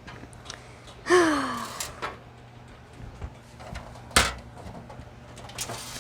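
Knocks and clicks from handling a computer case while searching for a dropped screw, with one sharp knock about four seconds in. A short falling vocal sound comes about a second in.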